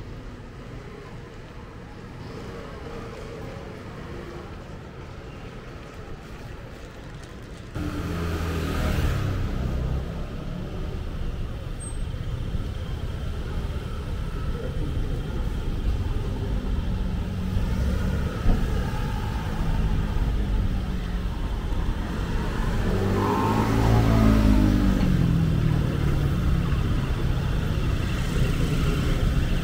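Street traffic: vehicles running and passing, with a steady background of road noise. The sound gets suddenly louder about a quarter of the way in, and a motor vehicle passes close by a little past the three-quarter mark, its engine note rising and then falling away.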